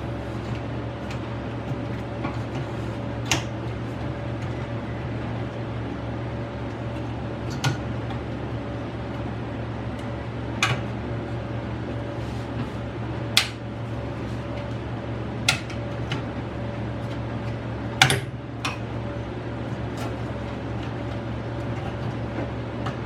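Scattered sharp clicks and knocks from hardware being handled as a CPU cooler fan is fitted back onto a desktop motherboard, over a steady low hum.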